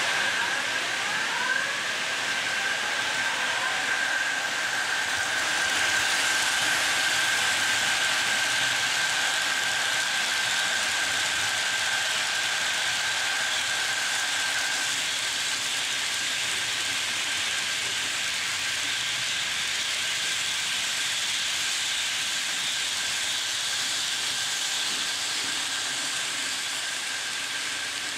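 Märklin H0 model freight trains running on metal track: a steady hiss of wheels rolling on the rails, with a thin high whine that fades out about halfway through.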